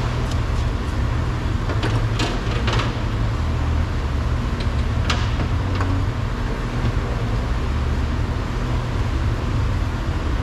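Steady low rumble of a running vehicle engine, with a few short clicks and scrapes of door glass and parts being handled in the first three seconds and once around five seconds in.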